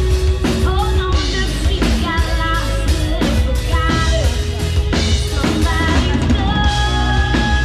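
Live rock band playing on an outdoor stage: a drum kit keeps a steady beat of about two hits a second under guitars.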